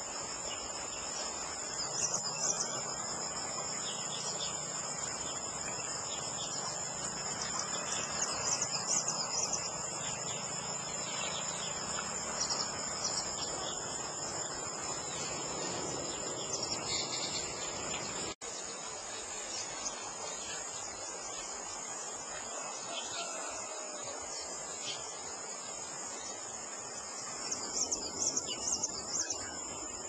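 Steady high-pitched chorus of insects, with short high bird chirps scattered over it in clusters about two seconds in, around eight to nine seconds, and near the end. The sound drops out for an instant a little past the middle.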